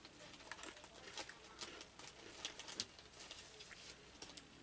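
Plastic snack wrapper of a chocolate Pocky packet crinkling and crackling in irregular sharp ticks as sticks are handled and pulled from it.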